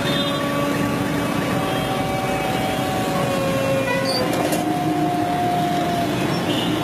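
Skid-steer loader's engine running amid busy street traffic noise, with several long steady tones that shift in pitch about four seconds in.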